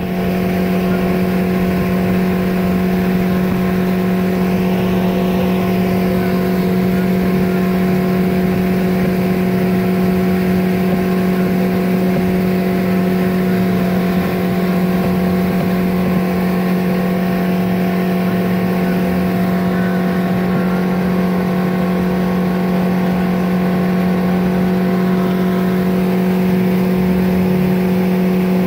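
Fishing boat's outboard motor running steadily with the boat underway: an even engine drone that holds one pitch throughout.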